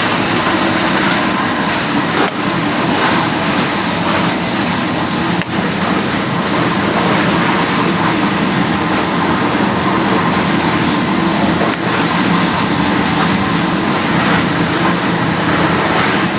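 Plastic recycling machinery running steadily: a loud, dense mechanical din over a low hum, with a few faint knocks.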